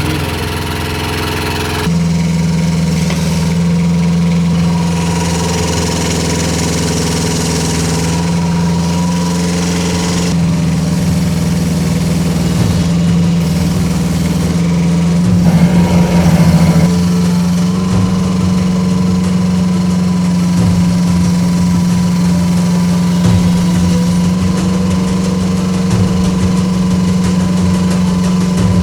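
Rippa R10 mini excavator's small diesel engine running steadily. It steps up to higher revs about two seconds in, turns briefly rougher and louder around the middle, then settles at a slightly higher, steady pitch.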